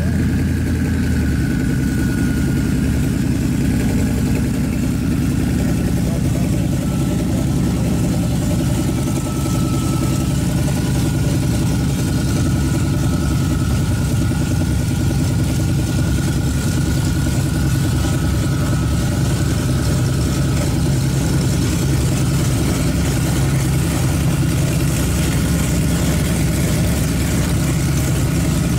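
Ford SVT Lightning drag-racing pickup's V8 idling steadily at the starting line after its burnout, with a faint steady whine above the engine note.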